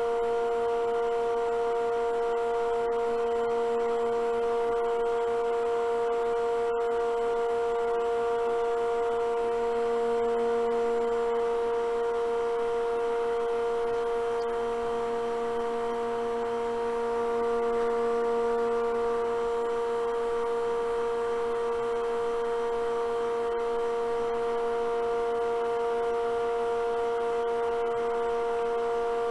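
Wood lathe with a vacuum chuck running at a steady speed while a bowl is painted on it: a constant electric hum with a steady whine above it, swelling slightly twice along the way.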